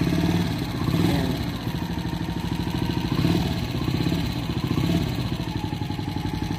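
Single-cylinder motorcycle engine of a Philippine tricycle (motorcycle with sidecar) running close by at low revs, with a steady putter that swells briefly about a second in and again a little after three seconds.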